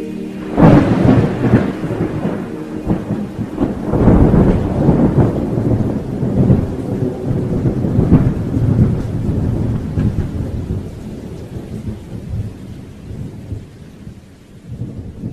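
Thunderstorm recording: thunder rumbling in rolling peaks over rain, loudest about half a second in and again around four seconds, then slowly fading out.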